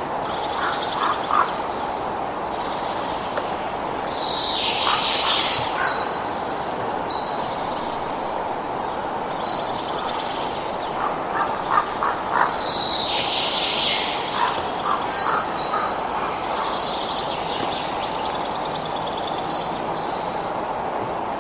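Wild birds calling and chirping again and again over a steady rushing background noise, with a few lower, duck-like calls now and then.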